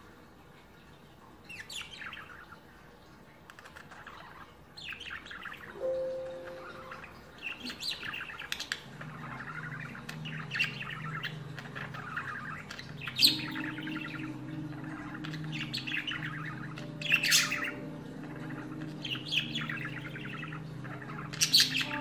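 Budgerigars chirping and warbling: a male's song to the hens, a run of short chirps and fast warbles with a few sharper, louder chirps. A steady low hum sits underneath from about nine seconds in.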